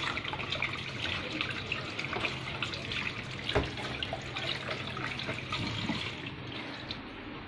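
Steady hiss of running water, with scattered small clicks and one sharper knock about three and a half seconds in.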